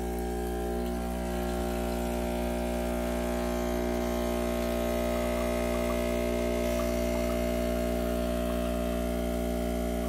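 Breville Duo Temp Pro espresso machine's pump humming steadily under load as it pushes water through the tamped coffee puck, extracting a double shot of espresso.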